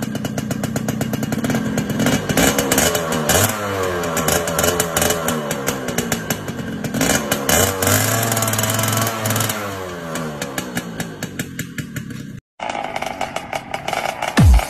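Suzuki underbone motorcycle engine revved hard at high revs during a burnout, its pitch sweeping up and down while the rear tyre spins and smokes. It cuts off suddenly near the end, and a different sound with a regular pulse follows.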